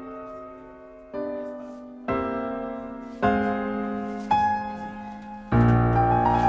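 Background piano music: chords struck about once a second, each fading before the next, with a louder, fuller chord near the end.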